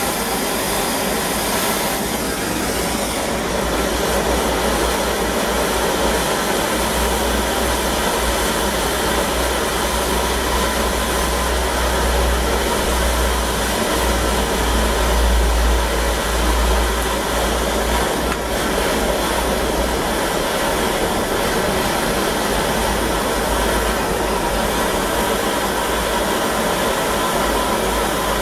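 Gas blowlamp flame burning steadily on a copper pipe joint, a continuous hiss with a low rumble that swells in the middle, as the water inside the pipe is steamed out before soldering.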